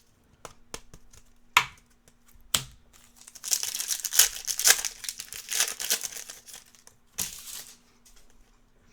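Trading-card packaging crinkling as cards are handled: a few sharp ticks at first, then about three seconds of steady crinkling, and one more short crinkle near the end.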